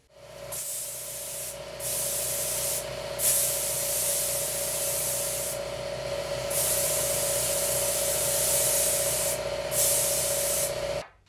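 A hose-fed power sprayer working on car suspension parts: a steady motor whine under a loud hiss of spray. The hiss drops out briefly four times while the whine carries on, and both stop abruptly at the end.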